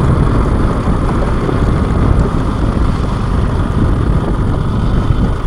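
A motorcycle running along a bumpy dirt trail: steady engine noise mixed with rushing wind on the microphone.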